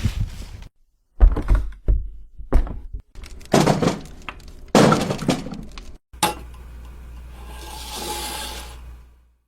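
A run of separate thud and impact sound effects, cut apart by brief silences: several heavy hits with ringing tails, some with a crash like something breaking. About six seconds in comes a sharp hit followed by a long swelling rush of noise that fades out near the end.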